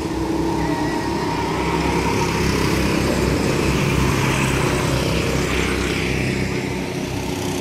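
Go-karts' small engines running as the karts drive past, swelling to their loudest about four seconds in as one kart passes close, then easing off.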